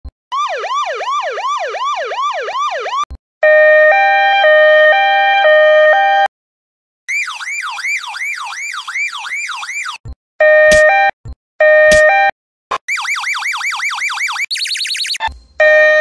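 A run of police siren sound variations: an electronic siren sweeping rapidly up and down alternates with a louder two-tone hi-lo siren. The pieces are a few seconds each, with short gaps between them. Later sweeps are higher and faster, ending in a brief high warble.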